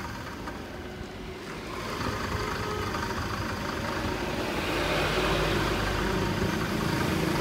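Small Japanese bench drill press's electric motor running, its belt and stepped pulleys turning, growing louder from about two seconds in and then holding steady; it runs smoothly and quietly.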